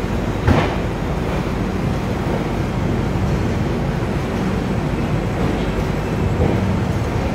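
Passenger train running along a station platform, heard from the coach door: a steady rumble and rush of air, with one sharp knock about half a second in.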